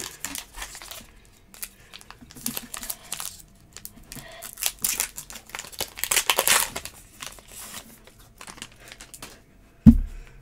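Plastic wrapper of a baseball card pack crinkling and tearing as it is ripped open by hand, in several bursts. A single sharp thump near the end.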